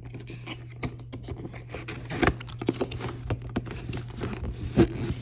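Cardboard box being handled and opened by hand: an irregular run of scrapes, taps and rustles over a low steady hum.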